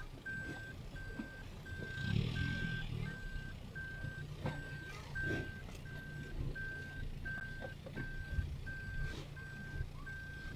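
A vehicle's reversing alarm beeping steadily, one even tone about twice a second, with a low hum underneath from about two seconds in.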